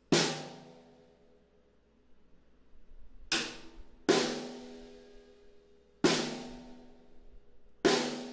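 Odery Eyedentity 14x6.5-inch nyatoh-shell snare drum, tuned somewhat low, struck five times with single hard strokes, each ringing out for about a second. A few soft taps come just before the second stroke.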